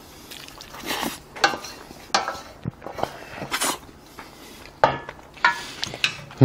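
Chopsticks clinking and scraping against a stainless steel pan while spicy mixed noodles are eaten from it, with a few short slurps between the clicks. A short, loud, low sound comes right at the end.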